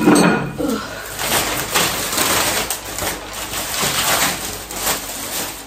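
Packaging rustling and crinkling with irregular crackles as purchases are handled and unwrapped.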